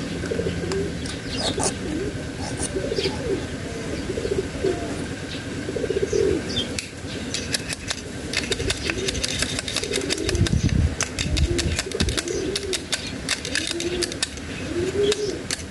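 Doves cooing over and over, in short rising-and-falling calls. From about halfway through, a dense run of small metal clicks and taps as fuel-pump parts are handled with a screwdriver, and a low thump about two-thirds in.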